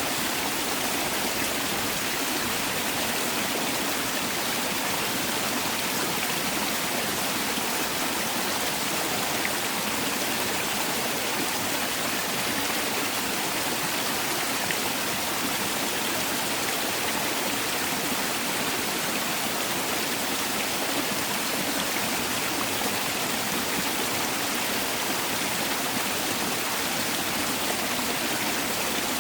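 Mountain valley stream rushing over rocks, a steady, even rush of water.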